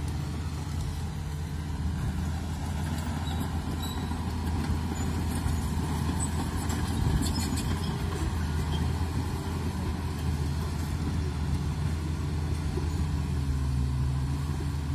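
D85 crawler bulldozer's diesel engine running at a steady working pitch as the machine moves and pushes soil, with some light clatter about midway through.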